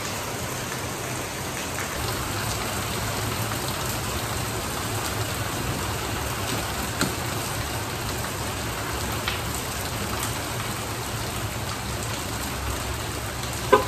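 Heavy rain pouring down steadily on a paved driveway, with a few faint clicks and one short, sharper sound near the end.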